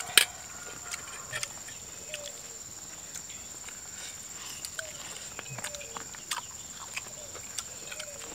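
Wet, sharp clicks and smacks of people chewing and eating with their hands, coming irregularly about once or twice a second, with the loudest just after the start. A steady high-pitched whine runs underneath.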